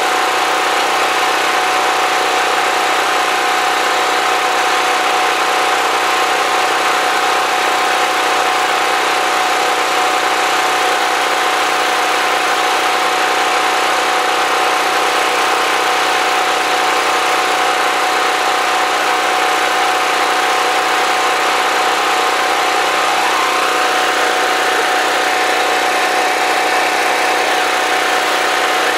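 Portable generator engine running loudly and steadily, with a constant hum and a steady whine.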